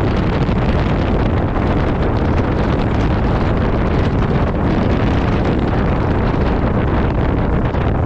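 Strong wind buffeting the microphone: a steady, loud rush with a heavy low rumble and no let-up.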